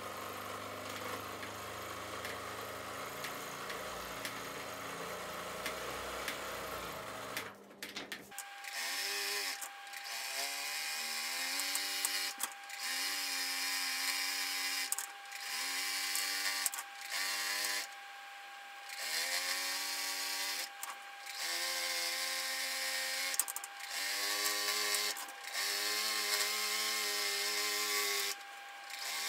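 Sewing machine on a quilting frame stitching: it runs steadily at first, then after about eight seconds in short stop-start runs of one to three seconds, its motor whine rising and falling with speed as the quilt is guided by hand. A thin steady high tone runs under the later runs.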